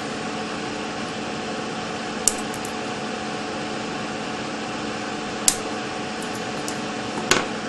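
Wire cutters snipping the excess leads of a freshly soldered electrolytic capacitor on a circuit board: three sharp clicks a few seconds apart, over a steady background hum.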